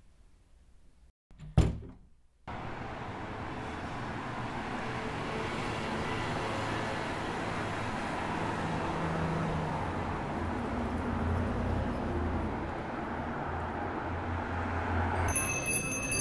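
A door shuts with one sharp, loud knock about a second and a half in. After a cut, steady street noise with a low traffic rumble follows, with a few light clicks near the end.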